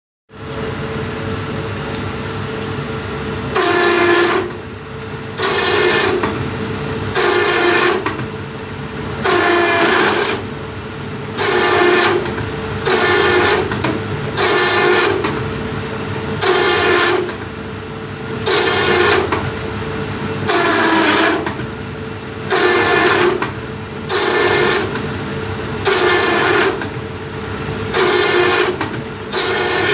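Satay-skewer bamboo slicing machine running with a steady motor hum, broken about every 1.7 seconds by a loud, buzzing cutting pass lasting under a second.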